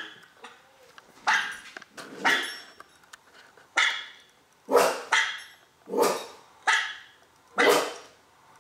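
A dog barking in short single barks, roughly one a second, about eight in all.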